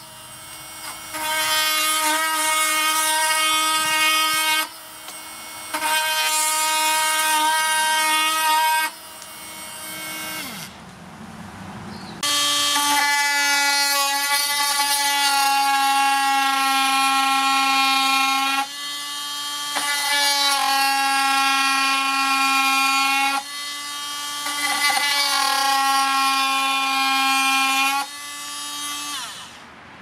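Makita cordless oscillating multi-tool plunge-cutting into a pine board: a steady buzzing whine that starts and stops in runs of a few seconds, about six times. From about twelve seconds in the whine is lower pitched.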